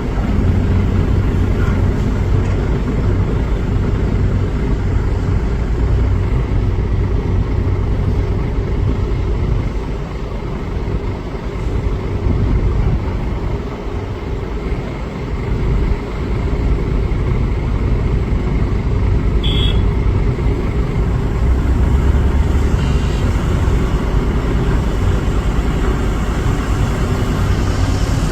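Cat 330 hydraulic excavator's diesel engine running steadily under working load as it digs, easing off briefly partway through, with one short sharp click about twenty seconds in.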